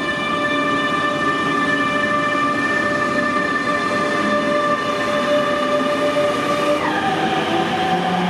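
DB Class 146 electric locomotive pushing a double-deck regional train under power, its traction converter and motors whining in several steady tones over rolling rumble. A low tone rises slowly as the train gathers speed, and about seven seconds in the whine drops abruptly in pitch.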